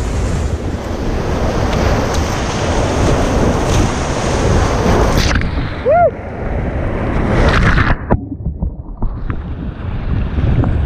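Whitewater rapid crashing and splashing over an inflatable raft, a loud, steady rush of waves with water hitting the camera. A short yell about six seconds in; near eight seconds the sound turns briefly muffled as a wave washes over the camera.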